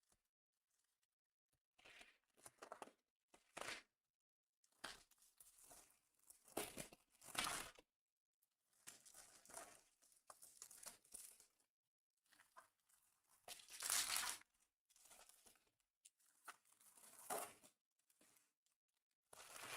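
Trading-card packaging being torn open and crinkled: faint, scattered bursts of tearing and crinkling wrapper, the louder ones about 7 and 14 seconds in.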